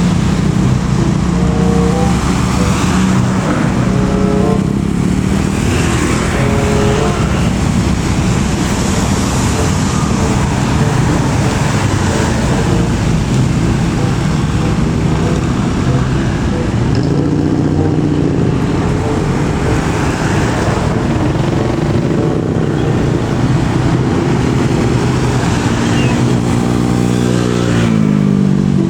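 Loud, continuous road traffic: large trucks and buses passing close by with their engines running, and one engine's pitch falling near the end.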